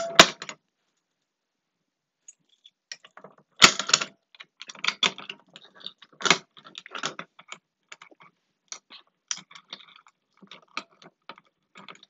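Irregular plastic and metal clicks and clacks of a manual fire alarm pull station being pulled and handled, the loudest sharp clack a few seconds in. The alarm does not sound.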